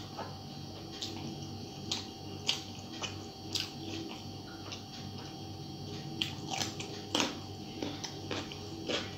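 Close-up eating sounds of a person eating rice by hand: chewing and mouth clicks, and fingers mixing rice on a steel plate. It comes across as many short, irregular clicks over a steady faint hum.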